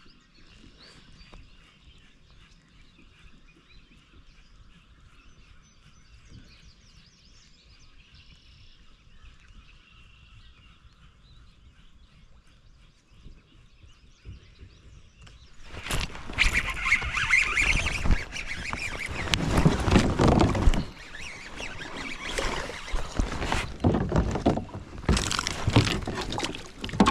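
Faint bird calls over calm water, then about two-thirds of the way through a largemouth bass strikes with a sudden loud splash. Heavy splashing follows as the hooked bass thrashes at the surface beside the kayak.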